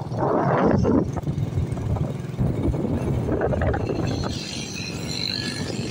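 Motorcycle riding along a road: the engine running under a rush of wind on the microphone. The wind is strongest in the first second.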